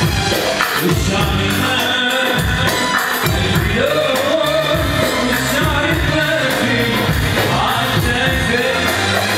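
A man singing an Arabic song into a microphone, holding and bending long notes, over backing music with a steady low drum beat.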